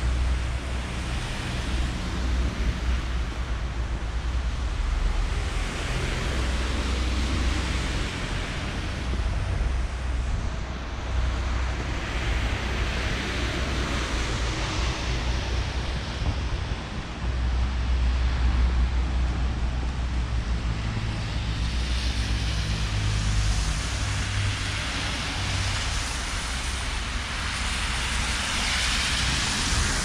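Street traffic: cars passing one after another, their tyre and engine noise swelling and fading several times, over a low wind rumble on the microphone.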